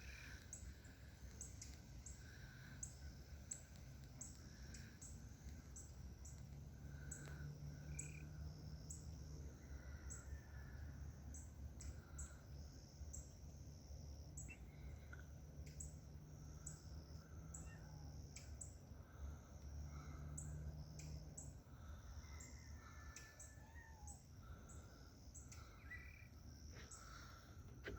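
Faint backyard ambience: birds give scattered short chirps and calls over a low wind rumble. A steady high ticking repeats about twice a second throughout.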